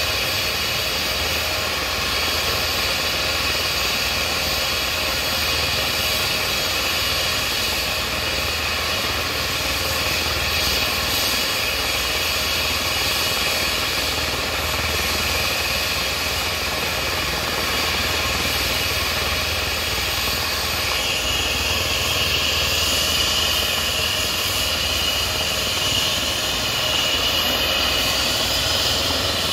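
Air-rescue helicopter running on the ground ahead of take-off: a steady turbine whine over rushing rotor and engine noise. A higher-pitched whine grows stronger about two-thirds of the way in and edges upward near the end.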